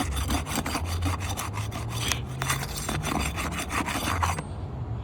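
Asphalt shingle being pried up off its seal: a dense, gritty scraping and rasping of granule-coated shingle that stops near the end. The shingle is tearing and puncturing as it comes away.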